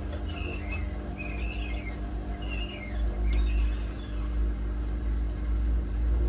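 Hotpoint WMA32 washing machine running with worn drum bearings: a low rumble and steady motor hum, with several short high squeaks in the first few seconds. The rumble grows louder about three seconds in. The squeaking and rumbling are the sign of bearings that are practically gone.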